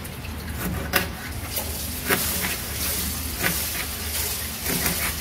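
Kitchen knife slicing through a raw grass carp fillet and knocking on the cutting board, a series of short irregular knocks, as the thin slices cut through the fish's small bones. A steady low hum runs underneath.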